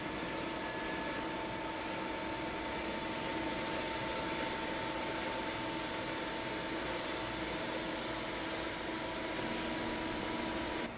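Beyeler CNC hydraulic press brake's 11 kW drive and pump running steadily, a constant hum with a couple of steady tones.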